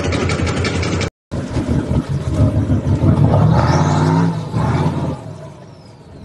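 A six-wheeled off-road truck's engine revving hard as it climbs out of a mud crossing, the pitch rising about three seconds in and then dropping away near the end. Before it, about a second of a vehicle engine running, heard from inside a cab, cuts off abruptly.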